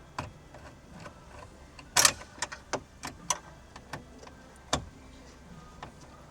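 Irregular sharp clicks and taps of hand tools and small bolts on metal and plastic, with the loudest clatter about two seconds in.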